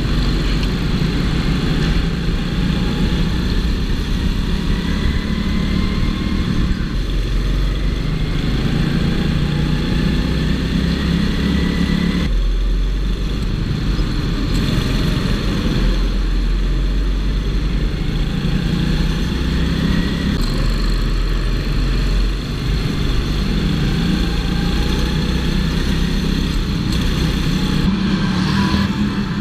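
Go-kart engine heard from a camera on the kart, its pitch climbing again and again as it accelerates and falling back when the throttle is lifted, sharply about twelve seconds in and again briefly near twenty-two seconds.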